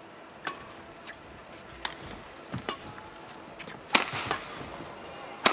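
Badminton rally: a run of sharp cracks as rackets strike the shuttlecock back and forth at uneven intervals, the two loudest hits near the end.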